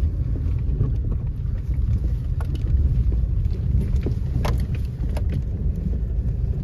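Car driving along a dirt road, heard from inside the cabin: a steady low rumble of engine and tyres, with a few short sharp knocks from about two seconds in.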